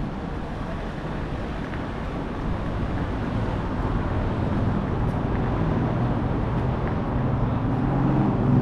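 Car engine running with a steady low rumble, its deeper engine note growing louder near the end.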